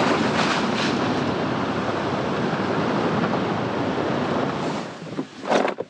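Steady rush of wind and road noise from a vehicle driving a dirt road, picked up by a camera mounted on its hood. It fades out about five seconds in, followed by a brief louder noise.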